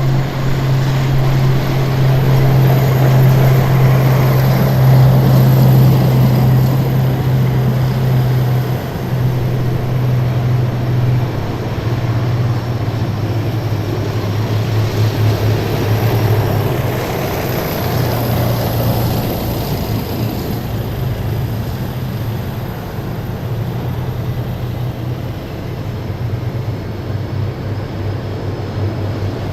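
Heavy military vehicles driving past in a column, their engines making a steady deep drone. The noise swells as vehicles pass close, loudest about four to six seconds in and again around sixteen to nineteen seconds.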